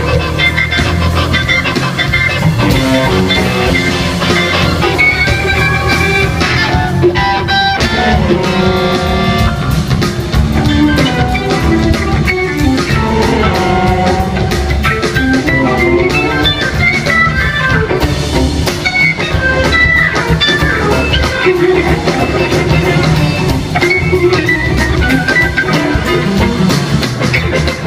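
Live band playing a funky blues-rock jam: drum kit and bass under busy melodic lead lines.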